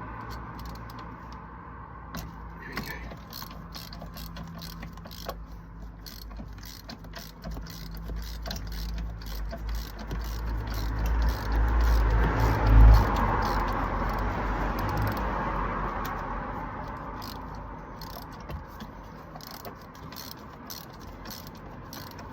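Hand ratchet turning a spark plug socket on an extension to unscrew a motorcycle spark plug, a long run of rapid ratchet clicks. A low rumble swells and fades in the middle.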